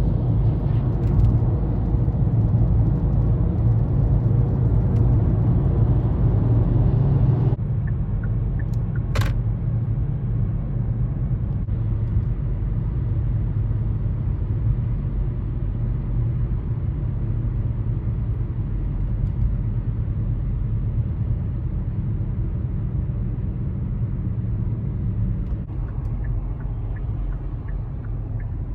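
A car driving on the highway: a steady low road and engine rumble. The higher hiss drops away suddenly about seven seconds in, and there is one sharp click a little later.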